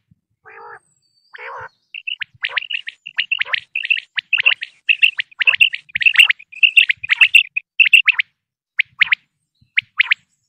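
Common quail calling: two low, rasping notes about a second in, then a rapid run of sharp, high calls for several seconds, thinning to spaced pairs and triplets of notes near the end.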